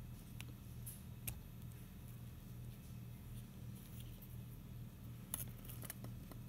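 Faint handling noises of a small webcam's plastic housing and circuit board being worked apart by hand: soft rustles and a few sharp clicks, one about a second in and a short cluster near the end, over a steady low hum.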